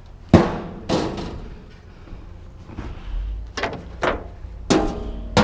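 Sharp knocks and clanks of a lightweight sheet-metal item being handled. The loudest comes about a third of a second in, another follows about a second in, and several more come in quick succession near the end.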